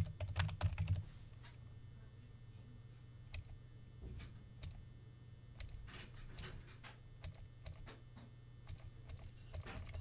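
Typing on a computer keyboard: scattered keystrokes, a quick loud run in the first second and then sparser taps, over a low steady hum.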